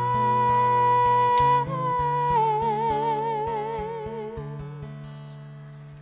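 A woman's voice holds a long sung note, then a second long note with a wide vibrato that fades away, over acoustic guitar chords that ring and die down.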